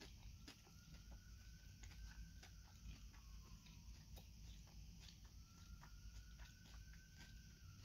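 Quiet close-up chewing of a mouthful of salad: scattered small crunches and wet mouth clicks. A faint tone slowly rises and sinks back, twice.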